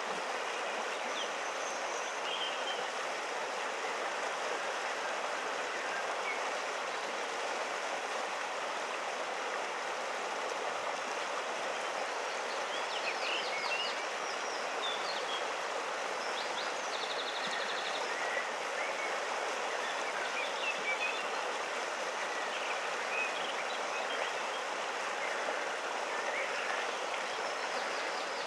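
Steady rush of river water flowing over rocks. Faint high chirps come and go over it, with a short rapid trill about halfway through.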